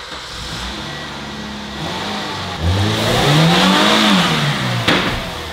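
Subaru Justy G3X's 1.3-litre 16-valve four-cylinder engine as the car pulls slowly forward. The engine revs up a couple of seconds in and falls back, with a sharp click near the end.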